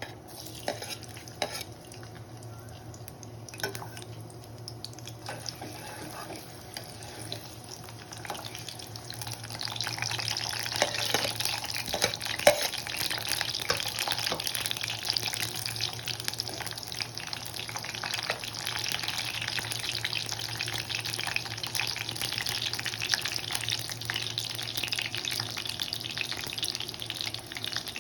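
Food frying in a pan, with occasional clicks and scrapes of a spoon stirring; the sizzling gets much louder about ten seconds in and then stays steady.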